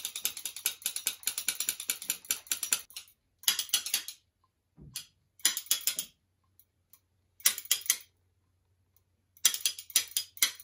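Rapid ratchet-like clicking from a small object worked by hand close to the microphone: a long unbroken run of clicks, then short bursts of half a second to a second with silent gaps between.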